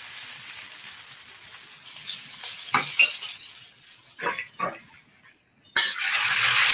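A few light knocks and clatters of kitchen utensils around a steel wok, then, after a brief dropout, a steady sizzle of hot oil in the wok starts abruptly near the end.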